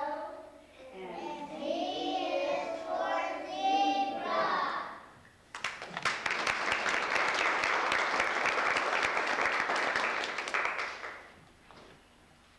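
Young children singing together as a group, high-pitched, through about the first five seconds. Audience applause follows, starting suddenly about five and a half seconds in, lasting some five seconds and dying away near the end.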